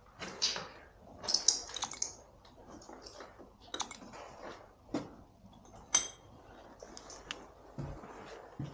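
Irregular clicks, knocks and light rattles of hard objects being moved or stepped on, with one short ringing clink about six seconds in.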